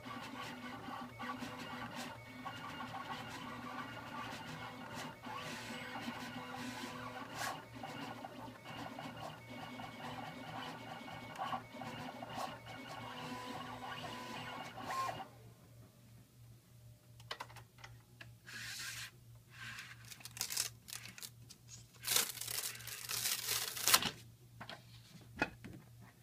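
KNK Zing Air vinyl cutting machine running its stepper motors, a steady whir in several tones with ticking as the carriage drives the blade and the mat moves. It stops abruptly about halfway through. Then come scattered clicks and rustling scrapes as the plastic cutting mat is unloaded and handled.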